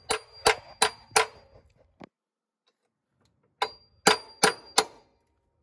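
Hammer tapping on a steel socket, metal on metal, each blow with a short bright ring: four quick blows about three a second, a pause, then four more. The socket is being used as a drift to press a new pillow-ball bearing evenly into an air-suspension top mount.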